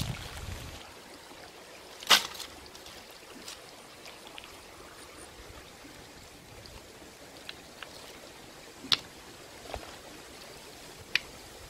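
A shallow creek running steadily over rocks, with a few sharp clicks and knocks of sticks and stones handled on the stony bank; the loudest knock comes about two seconds in.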